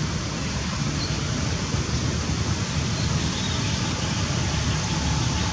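Steady rushing outdoor noise with an unsteady low rumble underneath, and no distinct events.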